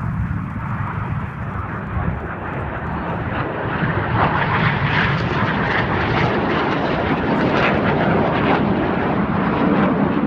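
Jet noise from a formation of BAE Hawk T1 trainer jets flying past. The noise comes in suddenly, grows louder about four seconds in, and holds steady and loud.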